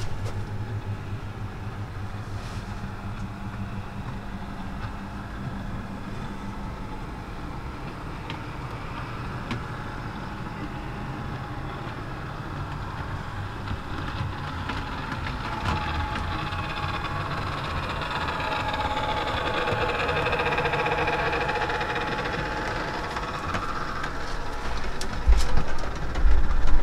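OO gauge model Arriva Trains Wales diesel unit with a sound decoder running, its recorded diesel engine note idling low at first and then building and growing louder in the second half. A few heavy low thumps near the end.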